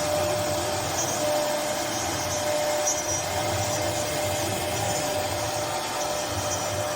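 A woodworking machine running steadily: an even, unbroken noise with a thin steady whine through it.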